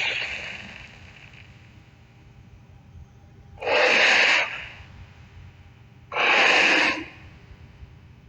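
Tarbosaurus creature sound effect: two short, breathy exhalations without a clear pitch, each just under a second long and about two and a half seconds apart. The tail of a louder call fades out in the first second.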